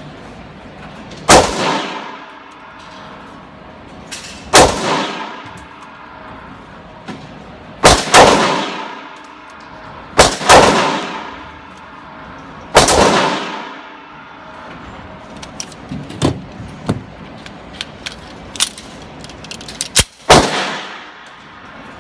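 Pistol shots firing aluminum-cased Federal ammunition, about eight in all at irregular spacing, some in quick pairs. Each shot is loud and echoes off the walls of an indoor range.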